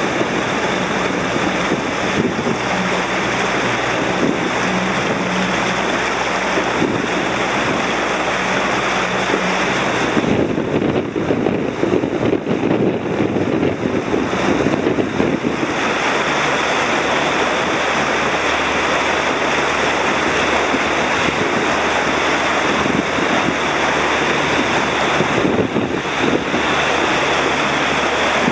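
Wind buffeting the microphone over the rush and splash of water past a moving boat in a fresh breeze, steady throughout. A low steady hum sits underneath for about the first ten seconds.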